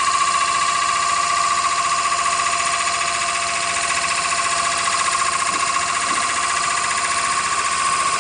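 CNC automatic wood lathe running, a steady high whine over a constant hiss.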